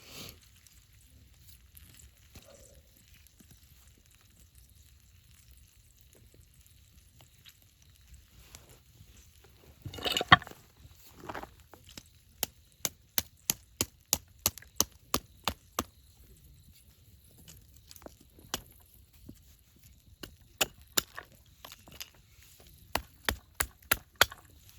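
Rhythmic chopping: a blade striking wood about three times a second, in two runs, after a louder cluster of knocks about ten seconds in.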